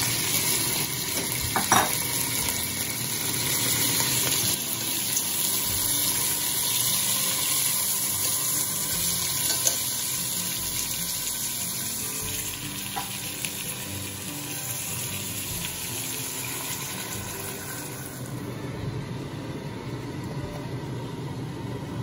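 Tomato wedges and aromatics sizzling as they fry in hot oil in a stainless steel pot, with a few sharp clicks. The sizzle slowly grows quieter and thins out near the end.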